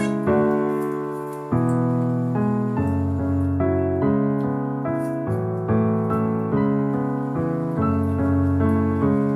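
Background piano music: a steady melody of struck notes and chords, each fading away before the next.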